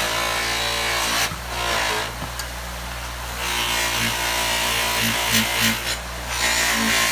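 Bench buffer running with a cloth buffing wheel as a metal pinball part is pressed against it: a steady motor hum under a loud rushing hiss from the part on the wheel, which drops away about a second in and comes back, easing and swelling as the part is worked.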